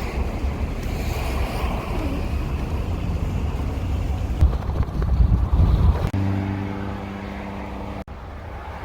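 Wind buffeting the microphone over passing road traffic as a car drives by the beach. About six seconds in it cuts abruptly to a steady, quieter hum with several even tones, and near the end there is a brief dropout.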